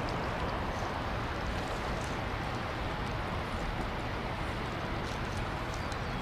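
Steady rush of water pouring out through the open gates of Truman Dam into the tailwater, with faint high ticks scattered through it.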